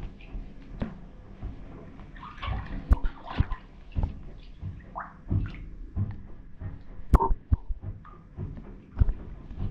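New sheepskin UGG boots stepping and shifting in shallow bath water: irregular splashing and sloshing, with a few sharp knocks, the loudest about three and seven seconds in.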